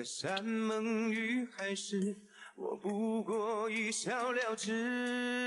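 A man singing a slow melody with a wavering vibrato, in short phrases, then a long held note near the end.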